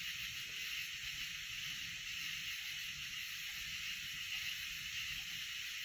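Steady high hiss of a night insect chorus over a low rumble of wind.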